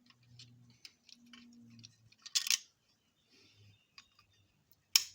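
Small clicks and taps of small diecast model car parts being handled and fitted, with two sharper clacks, one about two and a half seconds in and one near the end.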